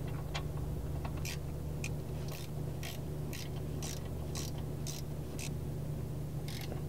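Ratcheting wrench clicking, about twice a second, as a suspension bolt is tightened, over a steady low hum.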